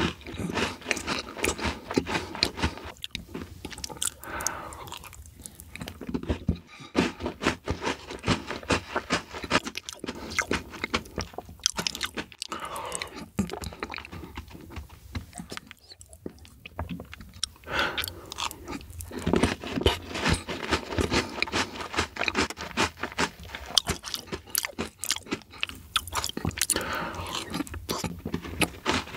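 Close-miked chewing of matcha desserts eaten by the spoonful: a dense run of wet mouth clicks, smacks and crunches, with a few short pauses between mouthfuls.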